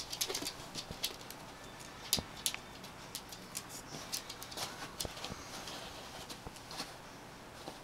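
A Norfolk Terrier pawing at a bed and moving on a wooden floor: a run of light, irregular claw clicks and scratches against the wooden bed frame, floor and bedding.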